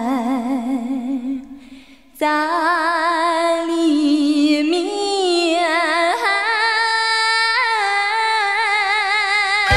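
A female voice sings a Chinese folk minor-tune melody in long held notes with wide, even vibrato over sparse accompaniment. It fades out about a second in and comes back in about two seconds in, and a fuller low accompaniment joins at the very end.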